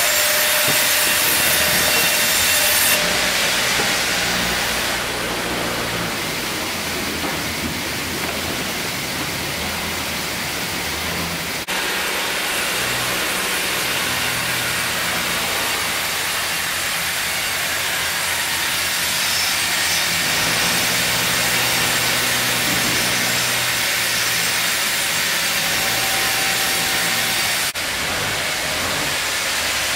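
Sawmill machinery running: an industrial band saw cutting lengthwise through a log, over a steady hum of motors. The sound changes abruptly about twelve seconds in and again near the end.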